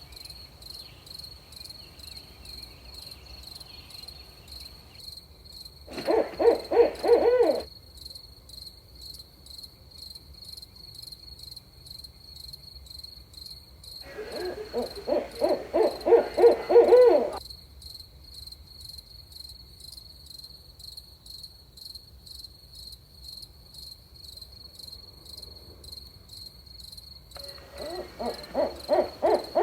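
Barred owl hooting in three bouts, each a quick run of deep hoots that builds in loudness, the last starting near the end. Underneath, a steady high trill of night insects.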